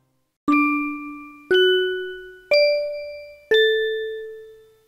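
Four-note chime jingle: one struck note a second, each ringing and fading before the next. The notes rise, then the fourth drops back a little and rings longest.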